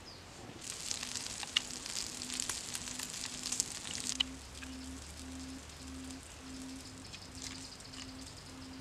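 Frogs sizzling on a hot stone slab over an open wood fire, a dense crackling hiss with many small pops. About four seconds in it drops away to a quieter steady background with a faint low hum.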